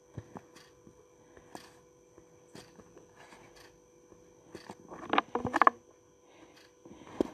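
Handling noise from a phone held in the hand: scattered light clicks and taps, with a brief louder rustle a little past the middle. A faint steady electrical whine runs underneath.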